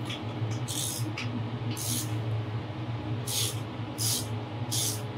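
A pipe clamp's screw being tightened by hand with a driver, in short rasping strokes about once a second, gently because the pipe is plastic. A steady low hum runs underneath.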